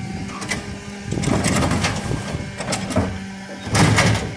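Geesinknorba Combi-split bin lifter on a refuse truck hydraulically raising and tipping a wheelie bin, over the steady hum of the truck's engine and hydraulic pump. The bin clatters and knocks against the lifter and hopper, with the loudest bang of the bin tipping and emptying a little before the end.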